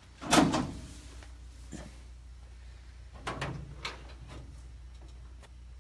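A sharp clunk about half a second in, then a softer clunk a little after three seconds followed by a light click, over a steady low hum.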